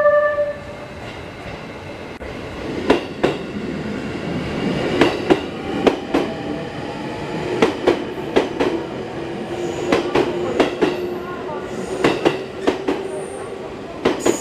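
E653 series electric train pulling away from the platform, its wheels clicking over rail joints, often in pairs, every second or two, with a steady motor whine from about halfway. The last note of a chime dies away in the first half-second.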